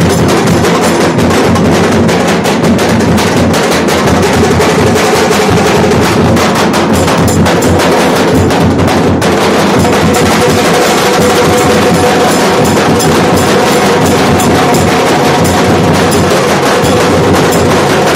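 A Nashik dhol ensemble: several large barrel-shaped dhol drums beaten hard with sticks in a fast, dense, unbroken rhythm.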